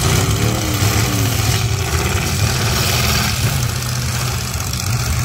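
Several demolition derby cars' engines running steadily together, a loud low engine drone with no single rev standing out.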